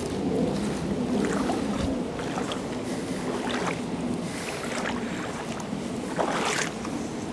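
Creek water running and splashing over rocks, a steady rushing noise with some wind on the microphone, and a louder rush about six seconds in.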